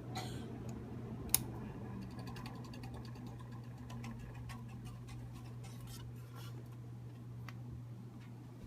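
Vintage Kenroy ceiling fan running, its bearings freshly greased: a steady motor hum with faint irregular ticking and one sharp click about a second in.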